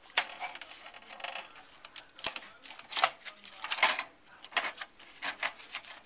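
Circuit boards and hard plastic and metal parts of an old computer clicking and clattering as they are handled and pulled apart, in a string of irregular knocks and rattles.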